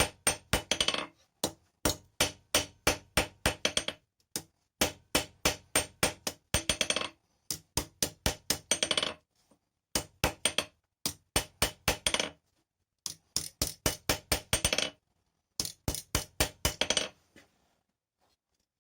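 Blacksmith's hammer striking steel on an anvil while forging an awl: runs of steady blows at about two to three a second, several ending in a quick flurry of lighter ringing taps, with short pauses between runs. The hammering stops shortly before the end.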